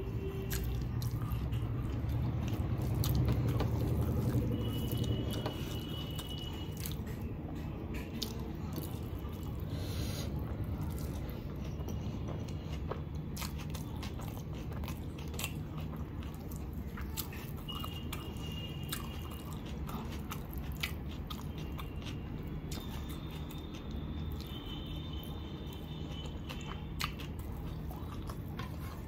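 Close-miked chewing and mouth sounds of someone eating chicken biryani by hand, with many small wet clicks scattered throughout.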